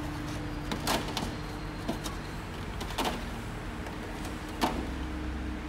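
A sheet of SoundSkins Pro sound-deadening mat being pushed into a car door's inner metal panel by hand, rustling and scraping against the metal, with three short sharp rustles about a second in, three seconds in and near the end, the last the loudest.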